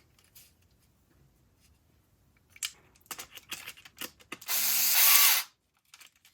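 Small plastic printed parts clicking and knocking as they are handled, then about a second of a small power screwdriver running as it drives an M3 screw to join the printed pieces.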